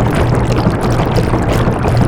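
Washing machine running, water sloshing in the turning drum over a steady low motor hum.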